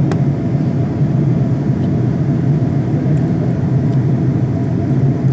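Jet airliner cabin noise in flight: a steady, loud low rumble of the engines and airflow heard from a window seat.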